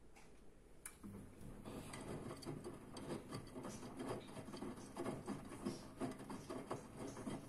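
Front-loading washing machine in its wash phase: after a click about a second in, the drum motor starts with a low hum and the drum turns, tumbling and sloshing the wet laundry with soft irregular thumps and swishes.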